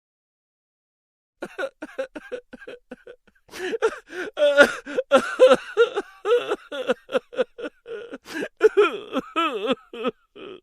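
Laughter sound effect: a person laughing in a long run of quick, short 'ha' bursts, starting about a second and a half in.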